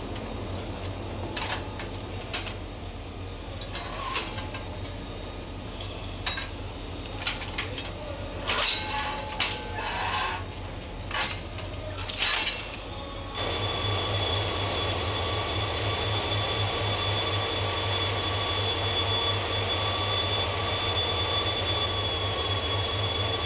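Metal clinks and knocks as cast brake blocks are handled and fitted at a diesel locomotive's bogie wheel, over a low workshop hum. About thirteen seconds in it switches suddenly to a steady, dense hiss with a thin high whine: the locomotive being sprayed in a washing plant.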